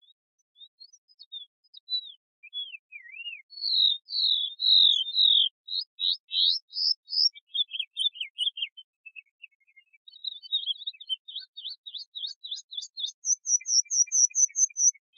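Belgian canary (domestic canary) singing: a run of varied whistled phrases of notes sliding up and down, then a quick series of short repeated notes over the last few seconds.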